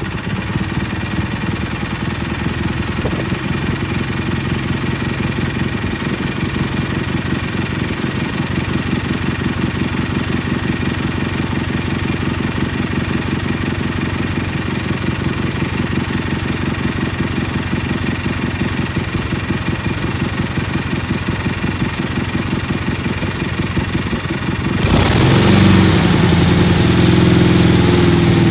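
Kohler Magnum 18 (MV18) V-twin engine idling steadily just after starting, running on fuel that gravity-feeds past its failing fuel pump. About 25 seconds in it speeds up and runs louder.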